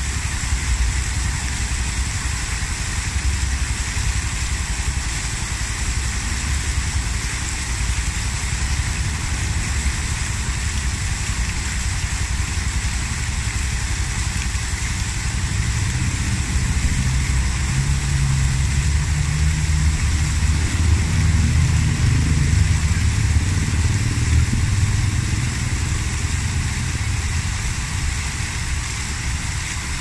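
Water cascading over a low wall of stacked stones and splashing into a foaming pool: a steady rushing splash with a deep rumble that grows louder for several seconds past the middle.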